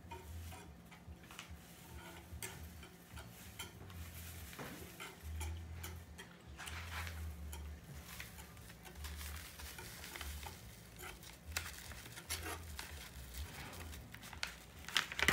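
Metal wire whisk stirring milk and béchamel mix in a speckled granite-coated pot, clicking and rattling against the pot in quick, irregular strokes.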